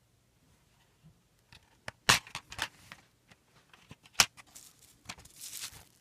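Plastic DVD keep case handled and snapped open: sharp plastic clicks, a cluster about two seconds in and the loudest a little after four seconds, then a short rustle near the end.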